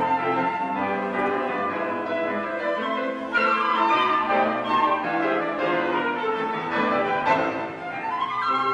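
Flute ensemble playing many sustained notes in close harmony, with quick rising runs a little past three seconds and again near the end.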